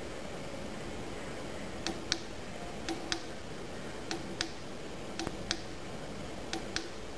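Keypad buttons on a Cummins JetScan 4068 currency counter being pressed five times, about once a second, each press a sharp double click, over a steady background hiss.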